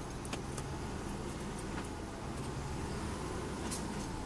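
Volvo VM truck's diesel engine running steadily under way, heard from inside the cab, with a few light clicks and rattles over it.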